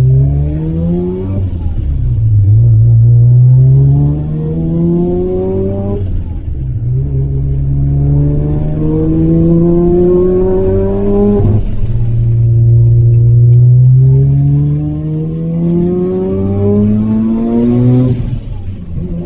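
Single-turbo Mazda RX-7 FD3S 13B rotary engine under hard acceleration on track. The revs climb in long sweeps and drop sharply about five times as the car shifts or lifts. A faint high whistle rises with the revs on the two longest pulls.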